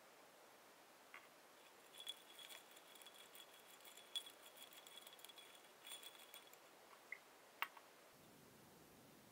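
Faint clinking of ice and a rod against a glass beaker, with a light ringing of the glass. It runs from about two seconds in until past six seconds, followed by a few single clicks.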